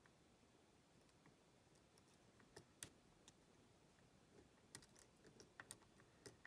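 Faint, irregular clicks of a lock pick and tension wrench working the pins of a pin-tumbler challenge lock as pins set. The clicks begin a couple of seconds in and come more often toward the end.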